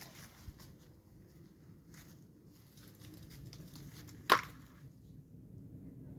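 A single sharp knock or click about four seconds in, over a low steady rumble, with a faint tick near the start.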